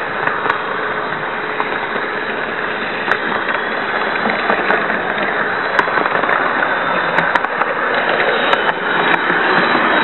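Märklin model train running on its track, heard from on board: a steady rolling rattle of wheels and motor with scattered small clicks, growing a little louder over the second half.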